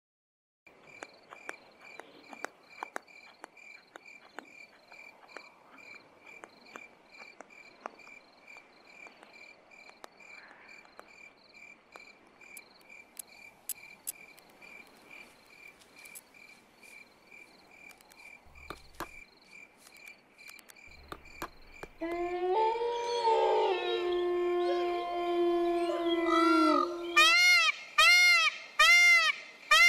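Night insects chirping in a steady pulsing trill, with scattered faint clicks. About two-thirds of the way through, a loud animal howl breaks in with several voices held together, followed near the end by a run of rising-and-falling howling cries.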